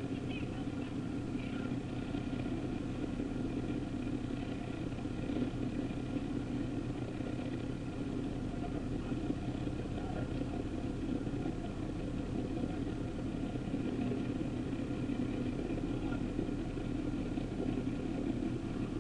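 Fishing boat's engine running steadily while under way, a constant drone with wind and water noise.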